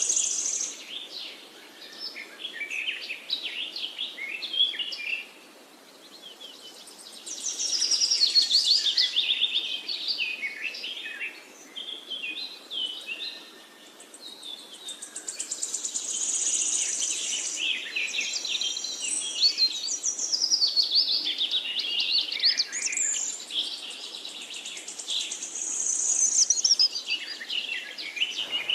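Several small birds chirping and twittering together in fast, overlapping calls and trills, with brief lulls twice before the chatter picks up again.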